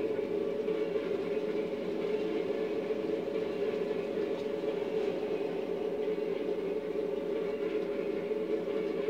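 N-scale model freight train running, its string of hopper cars rolling along the track with a steady hum.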